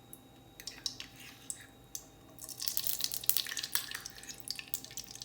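Desi ghee going into a hot kadhai: a few scattered pops at first, then a dense, steady crackling sizzle from about halfway through as the ghee melts and heats.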